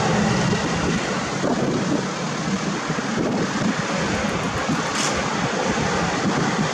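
Wind buffeting the microphone: a steady, fairly loud rumbling hiss with an irregular flutter in the low end.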